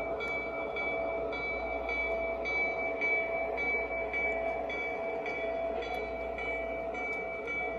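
Lionel Legacy S2 electric locomotive's bell ringing steadily, about two strokes a second, over the running noise of the model train rolling along the track.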